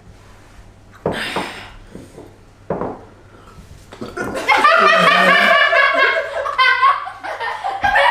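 A feeble burp after a drink of plain water rather than a fizzy drink, then loud laughter from about four seconds in.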